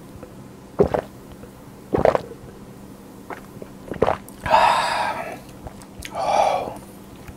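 Beer being gulped down from a glass mug, three loud swallows spaced a second or two apart, followed by two breathy exhales through pursed lips after the drink.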